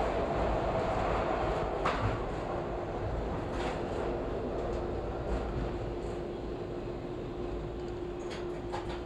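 Subway train running through a station into the tunnel, heard from the front of the leading car: a steady rumble of wheels on rail with a few sharp clicks, and a steady hum setting in about two and a half seconds in.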